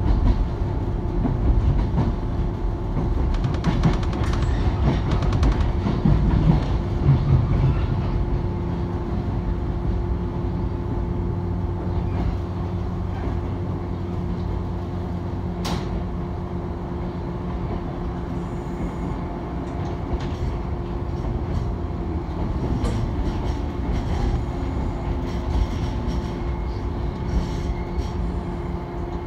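Bantan Line local electric train running along the track, heard from inside the carriage: a steady motor hum over low rumbling wheel and rail noise, with one sharp click about halfway through.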